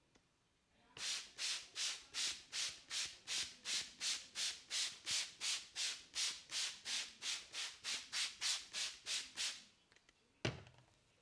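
Hands rubbing briskly over skin in quick, even back-and-forth strokes, about three a second, for roughly eight seconds: massage friction on a hand. A single sharp click comes near the end.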